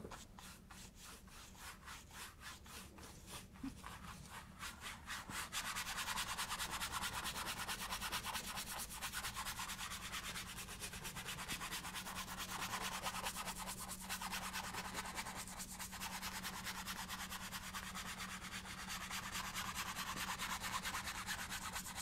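A two-inch paintbrush scrubbing quickly back and forth on canvas, blending wet oil paint. The brushing grows louder about five and a half seconds in.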